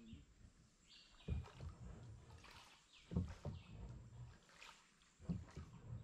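Rowboat being rowed with oars: a stroke about every two seconds, each marked by a knock from the oars.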